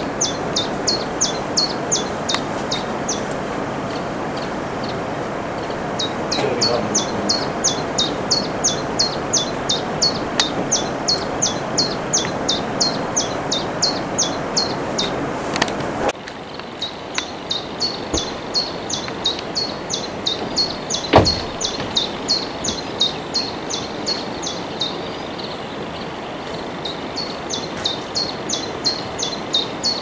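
Common chiffchaff singing: long phrases of high, sharp notes repeated about four a second, broken by short pauses. Under it runs a steady rushing background noise that drops suddenly about halfway through, and a single sharp knock about two-thirds of the way in is the loudest sound.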